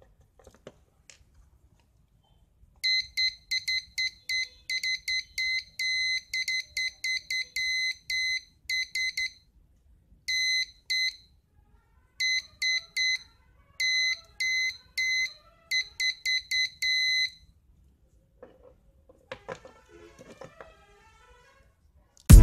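Morse code practice oscillator sounding a high, buzzy beep keyed on and off in short and long pulses: dots and dashes of Morse code, starting about three seconds in and stopping a few seconds before the end.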